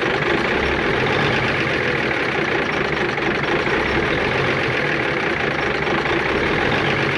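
The Cummins Big Cam IV 400 inline-six diesel in a 1988 Kenworth K100E cabover running steadily at idle, after sitting unused for nine years.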